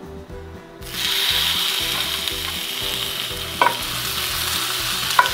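Raw venison shank pieces laid into a screaming-hot cast iron skillet: loud sizzling of the searing meat starts suddenly about a second in and carries on steadily, with two short sharp knocks as further pieces are set down in the pan.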